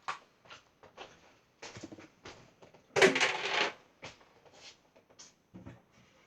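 Kitchen dishes being handled while a bowl is fetched: a scatter of small clicks and knocks, with a louder clatter lasting under a second about three seconds in.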